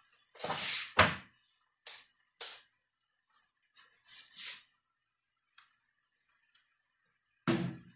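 Sliced mushrooms being turned and stirred with a wooden spatula in a frying pan: a series of short scraping, rustling strokes with pauses between them. The loudest stroke comes about a second in, and another strong one near the end.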